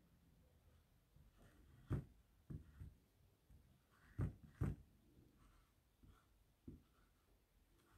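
Faint, short scrapes of a small squeegee pushed back and forth, spreading chalk paste over a screen-print stencil, in a few soft strokes with the loudest about four seconds in.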